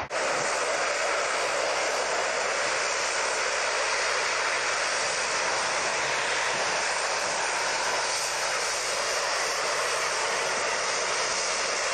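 Lockheed C-130 Hercules's four Allison T56 turboprop engines running close by, a steady loud rushing sound.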